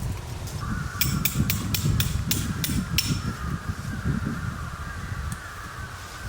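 A quick run of about eight sharp taps, roughly four a second, over a low rumble, with a faint steady higher sound coming in under a second in and holding on.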